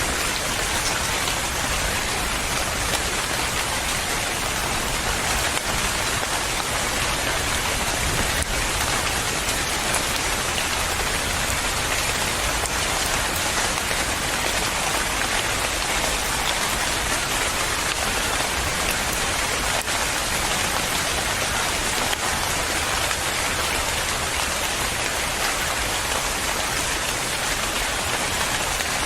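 Steady rain falling on a surface, a dense, even patter of drops with no change.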